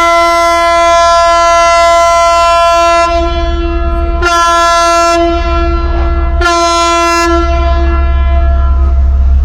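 A deep air horn at the ship canal sounding the long-short-short salute: the end of a long blast, then two short blasts. A steady low rumble runs underneath.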